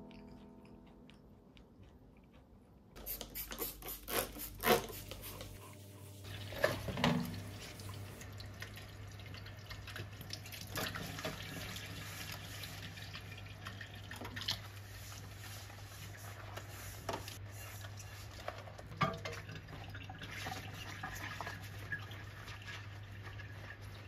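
Dishes being washed by hand in a stainless steel sink: a saucepan and crockery clink and knock about three to seven seconds in, then water and scrubbing with scattered small clinks over a steady low hum.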